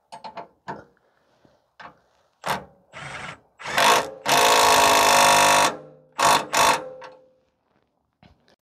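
Cordless power wrench spinning a shock-absorber mounting bolt and nut down in short bursts, with one longer run of about a second and a half in the middle and two quick blips after it. A few light clicks of the tool and socket come at the start.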